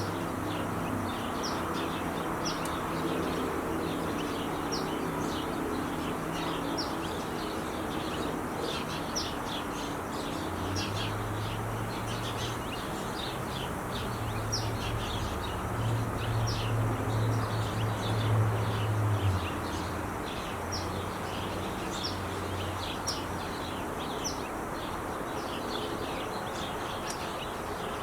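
Small birds chirping in quick, short notes over the steady noise of freeway traffic. A deeper low rumble of traffic swells from about ten seconds in and fades near twenty seconds.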